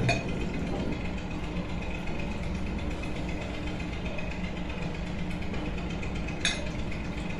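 A steady machine hum, with a single light clink of a spoon against a bowl near the end.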